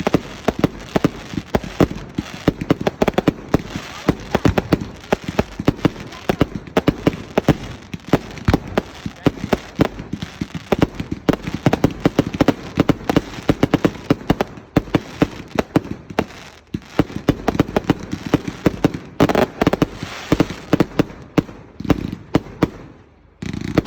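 Fireworks display: a dense, continuous run of bangs and crackles, many per second, easing off briefly near the end before the bangs start again.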